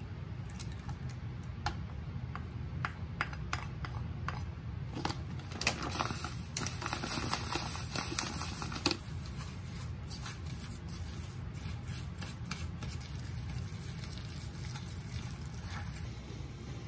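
An egg is cracked against a bowl in a few sharp taps. Then dry breadcrumbs pour from a bag into the bowl in a hissing stream for a few seconds. Then a hand mixes ground meat in the bowl with soft scattered clicks, all over a steady low hum.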